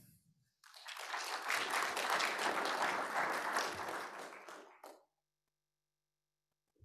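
Audience applauding for about four seconds, starting about half a second in and dying away.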